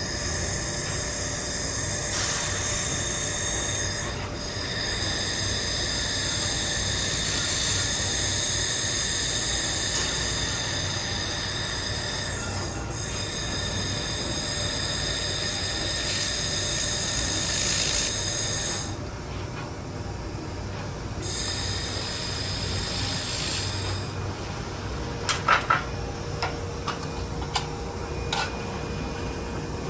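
IPG LightWELD handheld laser welder with wire feed running a weld pass on thin aluminum: a steady high-pitched whine with hiss. It stops for about two seconds, runs again briefly, then gives way to quieter noise with a few sharp clicks.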